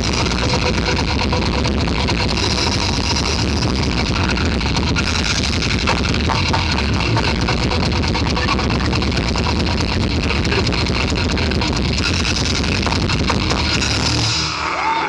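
Loud, dense, distorted electronic music with a heavy, steady low end. Near the end the sound thins and a falling pitch sweep comes in.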